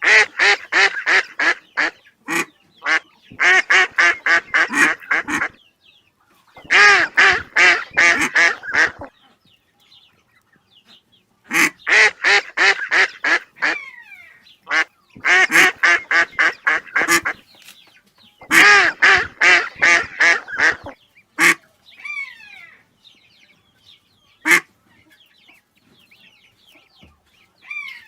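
Duck quacking in rapid runs, about six runs of several quacks each with short pauses between. Near the end come a few single quacks and faint high chirps.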